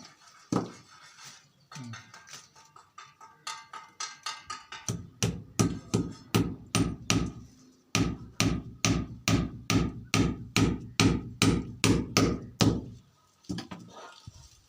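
Hammer driving nails to fix chicken mesh over a wall joint before plastering. A few light taps come first, then a steady run of blows about three a second from about five seconds in, stopping shortly before the end.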